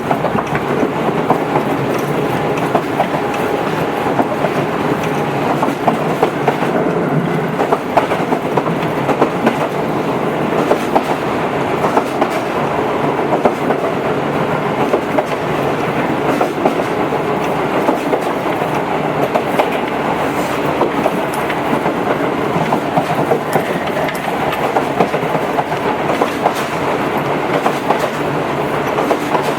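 Tobu 8000 series electric commuter train running along the line: a steady rolling rumble with repeated short clicks of the wheels over the rails.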